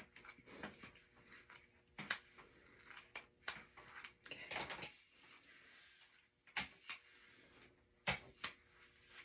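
Flat iron hair straightener being worked through hair: scattered faint clicks and soft rustling, with a longer rustle about four and a half seconds in.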